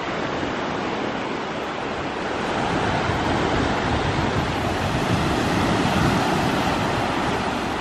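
Small Gulf of Mexico waves breaking and washing up over a shell-strewn beach: a steady rush of surf that swells louder a few seconds in.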